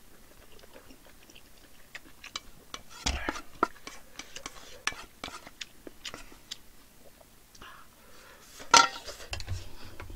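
Metal spoon clinking and scraping against a thin aluminium pot, with close-miked chewing and mouth sounds between the clinks; one louder clatter a little before the end.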